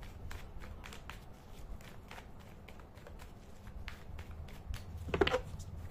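A tarot deck being shuffled by hand, the cards slipping against each other in soft, irregular clicks and taps. A short voiced hum comes about five seconds in.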